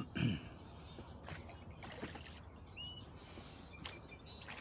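Rowing a small rowboat: oars knocking in the oarlocks and working the water, with irregular knocks about once a second. The loudest is a low thud just after the start. A few short bird chirps sound faintly in the background.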